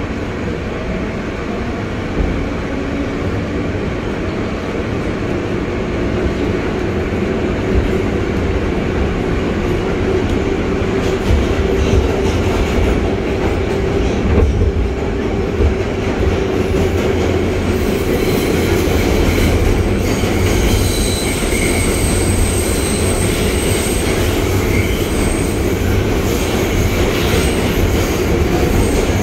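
New York City subway train running between stations, heard from inside the car: a steady rumble of wheels on the track that grows a little louder over the first several seconds, with high thin wheel squeals through the second half.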